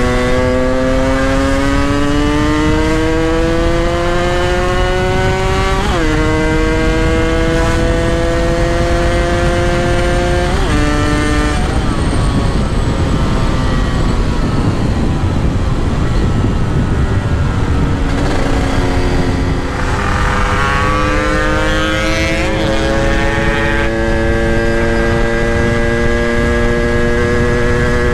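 Yamaha RX-King's single-cylinder two-stroke engine pulling on the road. Its pitch climbs slowly and drops sharply at gear changes about six and eleven seconds in, then climbs again and holds steady near the end, over a steady rushing noise.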